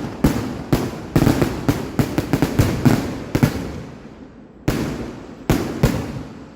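Fireworks going off: a rapid irregular string of sharp bangs, each with a short fading echo, then a lull of about a second and three more bangs near the end.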